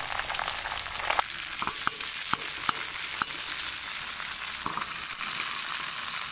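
Fresh curry leaves sizzling in hot coconut oil with fried shallots and dried red chillies in a wok, being stirred, with a steady hiss and a scatter of sharp pops and crackles as the wet leaves hit the oil.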